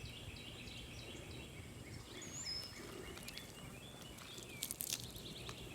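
Faint outdoor background of small birds chirping in quick repeated notes, with one higher whistled note about two seconds in. A few sharp clicks or rustles near the end.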